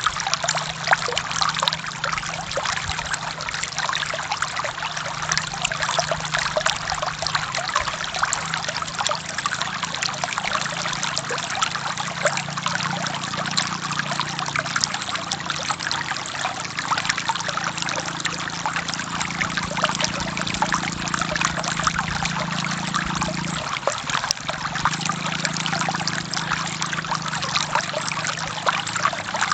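Forest stream water flowing steadily, a dense trickling and splashing without a break.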